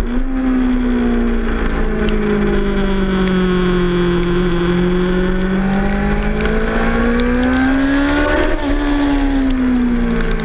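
2006 Suzuki GSX-R 600's inline four-cylinder engine heard onboard under wind and water-spray noise. Its revs jump briefly at the start, sag slowly through a corner, then climb for a few seconds as the bike drives out. They drop sharply with an upshift about eight and a half seconds in, then ease off again.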